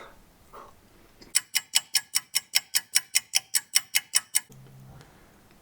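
Timer alarm beeping in a fast, even series of short beeps, about five a second, for roughly three seconds before it stops. It signals that the time is up.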